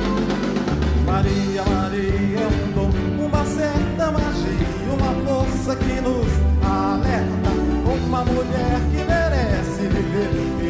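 Live band playing a song: a male lead singer over a drum kit and keyboard, with a steady beat and bass line.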